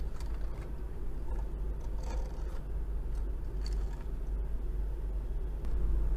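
Metal toy wheel loader pushed back and forth by hand on a table: a low rolling rumble from its small plastic wheels, with a few faint clicks.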